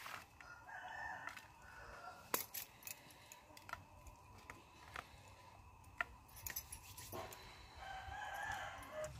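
A rooster crowing twice, once near the start and again near the end, with scattered sharp clicks and taps in between.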